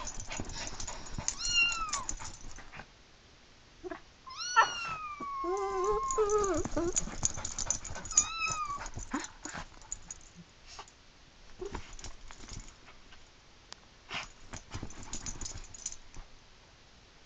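Cell phone ringtone of a kitten mewing. Short falling mews repeat several times in the first nine seconds, with a longer, drawn-out cluster of mews about four to seven seconds in, and a dog makes short excited sounds in between. After that there are only scattered short clicks and noises.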